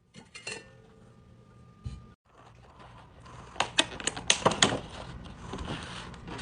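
Containers and packaged food being handled and set down: a run of sharp clicks and knocks about halfway through, then a rustle near the end.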